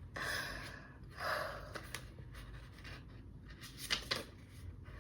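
A person's two heavy, breathy exhales, followed about four seconds in by a few light clicks of something being handled.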